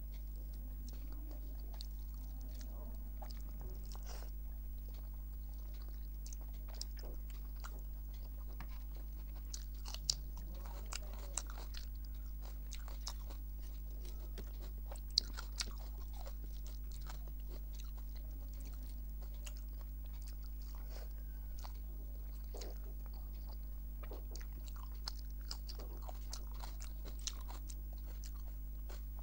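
Close-miked chewing and biting of a mouthful of rice, dal and vegetable fries, with scattered wet mouth smacks and a few sharper crunches, the sharpest about ten and fifteen seconds in. A steady low hum runs underneath.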